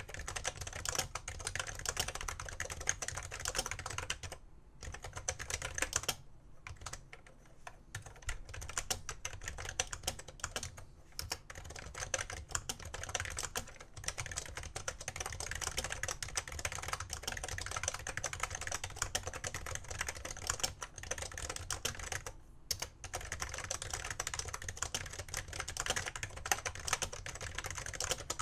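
BTC 5139 keyboard with BTC conductive rubber dome switches being typed on steadily, a fast run of key presses broken by a few short pauses.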